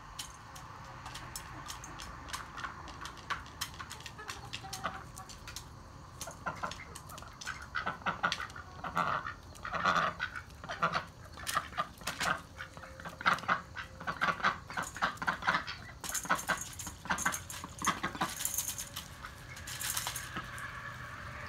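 Domestic ducks quacking and honking and chickens clucking while they feed, over many quick clicks and rattles of beaks pecking dry cat food in metal bowls, getting busier about halfway through.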